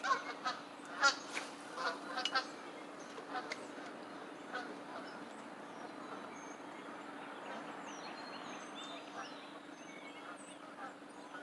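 A quick series of short honking bird calls in the first couple of seconds, then faint, high chirps from small birds, over a steady low hum.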